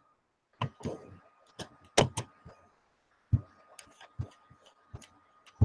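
A run of irregular, sharp clicks and knocks, about fifteen in all, with a short gap around the middle. A faint steady high whine runs under them.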